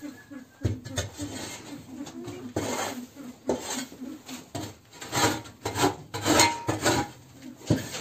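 Metal shovel blade scraping across a shed floor to clear litter, in repeated irregular strokes.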